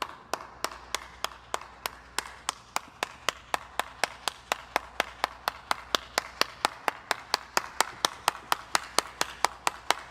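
Steady rhythmic clapping, about four even claps a second.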